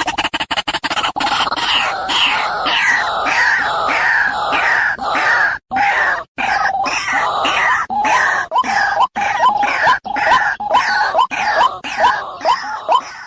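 White-breasted waterhen (ruak-ruak) calling loudly. First a dense run of harsh, overlapping croaking notes, then evenly repeated short upslurred notes about twice a second.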